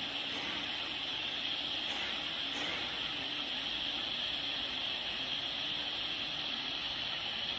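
Blowtorch fitted with a soldering tip, hissing steadily as it heats a twisted wire splice while solder is fed in.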